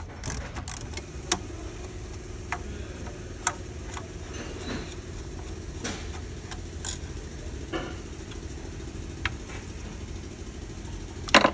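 Scattered light metallic clicks and taps of a wrench working a banjo bolt loose from the high-pressure fuel line at the back of a diesel fuel rail, over a steady low hum.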